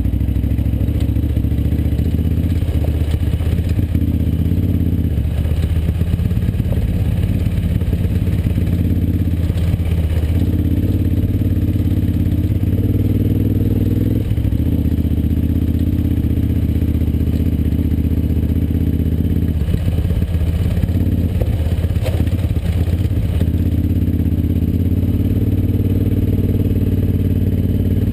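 KTM 950 adventure motorcycle's V-twin engine running at low, fairly steady revs while riding over a rocky dirt track, with the revs dipping and rising a few times. The bike rattles and clatters over the rocks.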